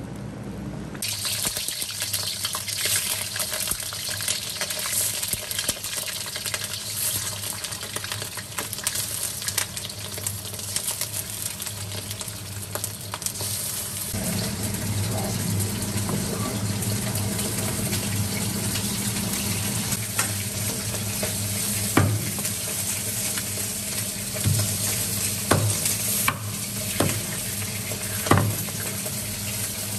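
Hot oil sizzling as chicken wings fry in a wok. Near the end a large kitchen knife chops raw chicken on a wooden cutting board, several sharp knocks.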